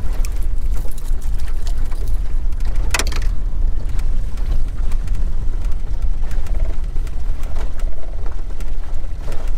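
Steady low rumble of wind on the microphone and a small Mercury outboard running at trolling speed on an aluminium dinghy, with one sharp knock about three seconds in.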